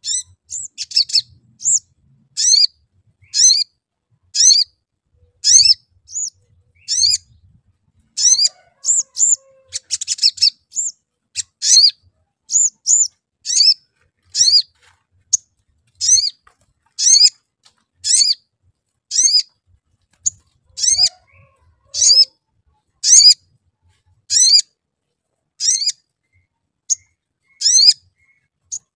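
Male olive-backed sunbird (sogon) calling: short, sharp, high chirps ("cuit cuit") repeated about once a second.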